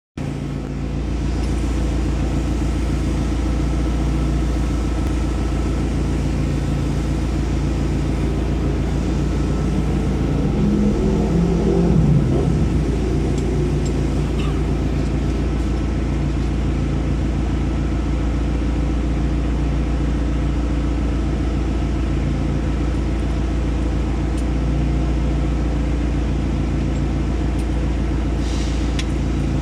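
Mitsubishi L300 engine idling steadily after a top overhaul and valve clearance adjustment, briefly louder with shifting pitch about eleven seconds in.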